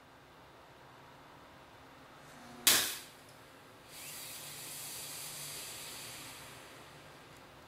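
A sharp pop from a component on an overvolted DSL modem's circuit board. About a second later comes a hiss lasting about three seconds as the part vents smoke, burnt out by too much DC voltage.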